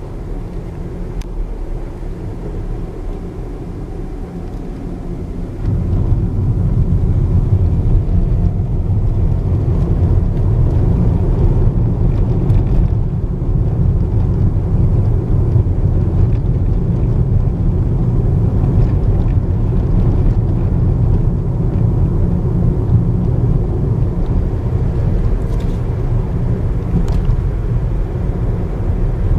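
Road and engine noise of a moving car heard inside the cabin: a steady low rumble that steps up in loudness about six seconds in and then holds.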